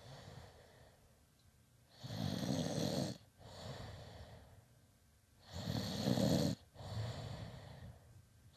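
A sleeping man snoring: two loud, rattling snores about three and a half seconds apart, each followed by a softer breath.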